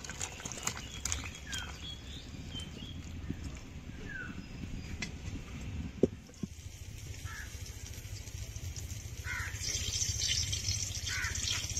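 Outdoor rural ambience: short bird calls come every couple of seconds over a low steady rumble, with scattered faint clicks and one sharp knock about six seconds in.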